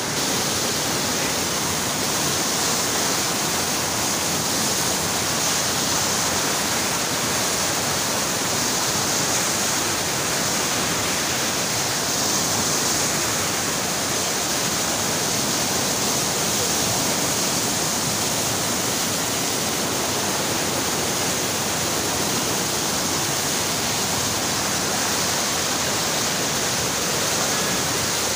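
Muddy floodwater of the swollen Neelum River rushing and churning past close by, a loud steady roar of turbulent water.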